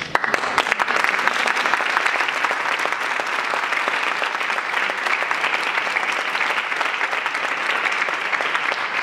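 Audience applause that breaks out suddenly and keeps up at an even level.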